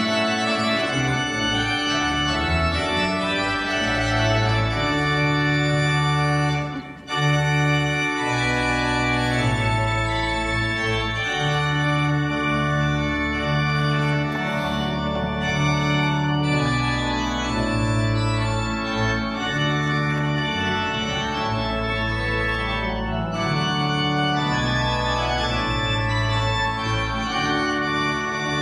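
Church organ playing slow sustained chords over low bass notes that change every second or two, with a brief break about seven seconds in.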